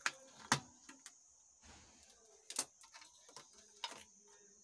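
A handful of sharp, irregular clicks and light knocks from a power amplifier's wire-harness plugs and circuit board being handled and unplugged as the channel board is taken out.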